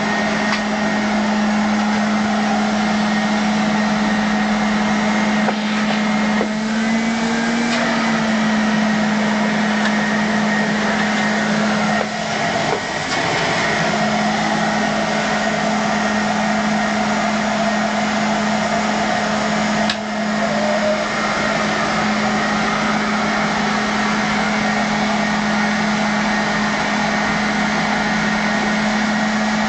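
A small electric motor running without a break: a steady, loud hum with an airy hiss over it, dipping briefly twice.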